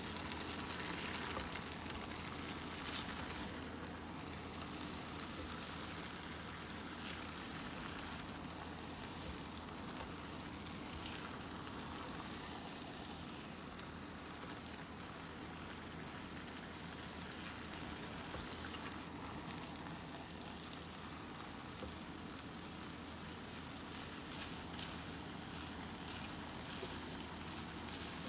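Pot of Puerto Rican rice with beans simmering, a steady bubbling and hiss with scattered small pops as the cooking water boils down into the rice.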